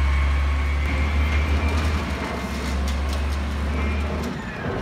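Peterbilt 320 garbage truck's diesel engine running with a strong low drone and a faint high whine over it, as the truck pulls away. The drone drops away sharply near the end.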